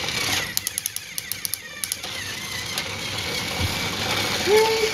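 Battery-powered toy train running on plastic track: a steady motor whine, with a quick run of clicks and rattles from about half a second to two seconds in. Near the end comes a short rising-and-falling voice sound.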